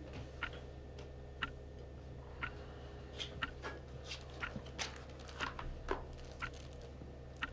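A clock ticking about once a second over a low steady hum, with irregular light clicks and snaps of playing cards being handled and dealt between about three and six seconds in.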